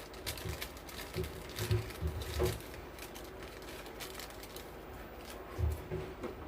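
Scattered soft knocks and faint clicks of small parts and tools being handled on a workbench, over a faint steady hum.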